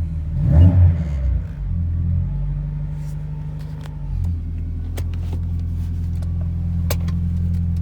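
BMW E28 518i's M10 four-cylinder engine running steadily at idle just after being started, briefly louder about half a second in. It sounds healthy, with no bad noises.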